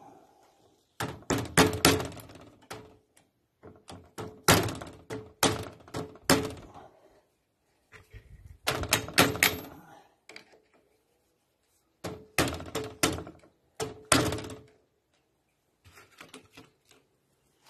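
Metal tool tapping and knocking on the drive end of a Paris-Rhône starter motor, in four bursts of quick strikes with a ringing metallic note.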